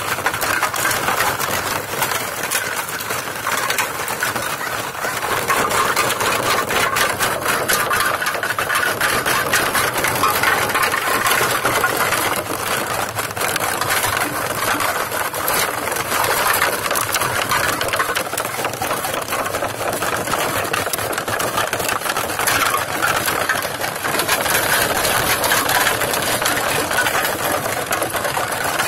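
Empty aluminium soda cans and crinkly plastic bottles clattering and rattling against each other and a plastic kiddie pool as puppies paw, nose and chew through them, a continuous dense jumble of small clicks and crackles.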